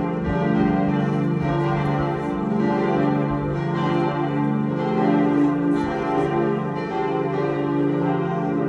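Full peal of the Marienbasilika's church bells, several bells swinging and ringing together in overlapping strokes without a pause: the peal that calls to the pilgrims' mass.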